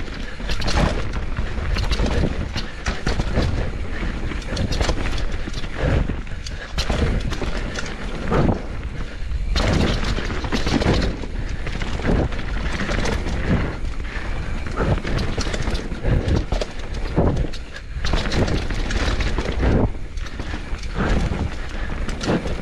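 Canyon Torque enduro mountain bike descending a rough dirt and rock trail at speed: a constant clatter and rattle of the bike and its knobby tyres over roots and stones, with frequent hard thumps as it takes hits.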